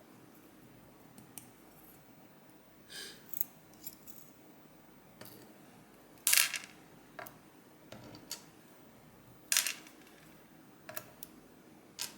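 Small metal lock parts clicking and tapping as a Medeco M3 lock's pins and springs are handled and set down during disassembly. Scattered light taps, with two sharper clacks about six and nine and a half seconds in.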